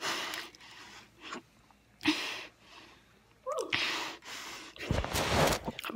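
A boy's loud breaths and gasps right at a phone's microphone, several separate bursts of breath. A short rising voiced sound comes about three and a half seconds in, and the loudest breath blast comes near the end.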